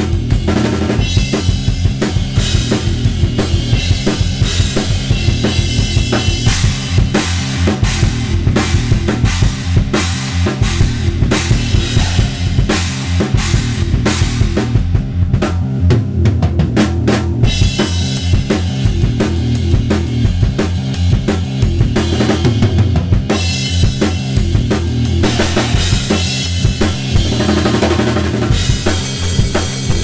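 A large drum kit played hard and fast, with a dense run of kick drum, snare and tom strokes under crashing cymbals. The cymbals drop out briefly about halfway through and again a little later, leaving only the drums.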